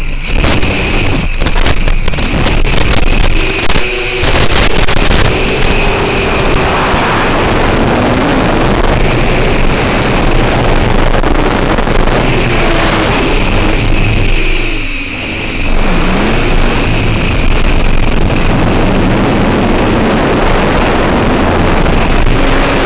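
Electric motor and propeller of an FPV fixed-wing RC plane, heard close up over a constant wind rush. The motor's pitch rises and falls with the throttle and dips briefly about fifteen seconds in.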